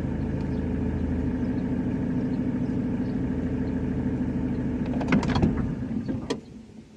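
A steady engine drone, like a vehicle idling, with a few sharp clicks about five seconds in before the sound fades away near the end.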